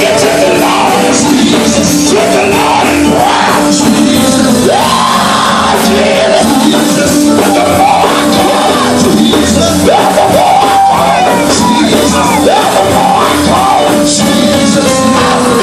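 Loud live gospel music: voices singing and shouting over a full band.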